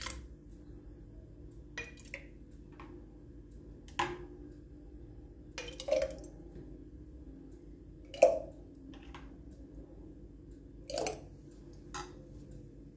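Metal spoon scooping thick tomato sauce and knocking against a glass jar's mouth and a plastic bowl while the jar is filled: scattered clinks and wet squishes every second or two, the loudest about eight seconds in, over a faint steady hum.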